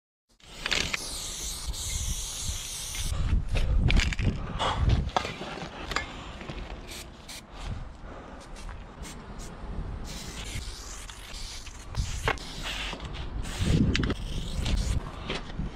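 Aerosol spray paint can hissing as paint is sprayed, longest during the first few seconds. Short sharp clicks and knocks of the can being handled follow, over a low rumble.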